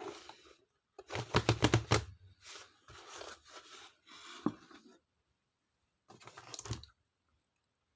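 Packaging being handled and torn open by hand: crinkling and tearing in several bursts with sharp clicks. The loudest burst comes about a second in, and a softer one near the end.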